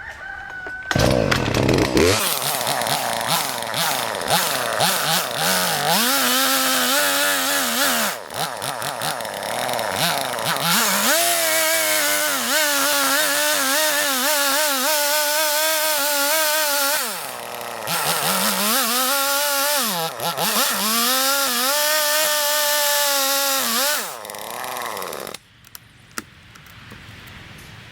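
Chainsaw with a ripping chain cutting a piece of firewood. It comes up to speed about a second in, its engine pitch sagging and recovering several times under load, and stops near the end.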